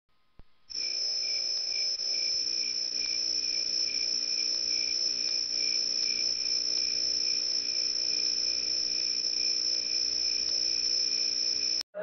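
Crickets trilling: one steady high-pitched tone with a softer chirp pulsing about twice a second beneath it. It starts abruptly about a second in and cuts off just before the end.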